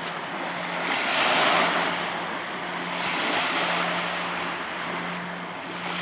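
Small lake waves washing onto a sandy shore, the rushing swelling and fading every couple of seconds. A faint steady low hum sits underneath.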